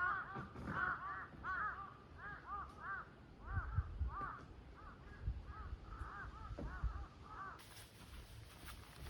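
Crows cawing in a long run of short, quick calls, about two a second, that stops near the end. Low dull bumps sound under the calls, and a rustling hiss starts near the end.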